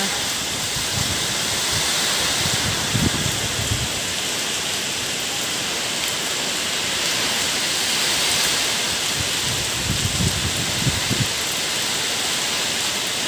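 Steady heavy rain falling, with a few gusts of wind buffeting the microphone as low rumbles.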